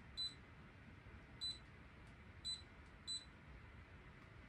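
Four short, high electronic beeps, unevenly spaced, from a wearable neck cooling fan as its buttons are pressed to change its setting.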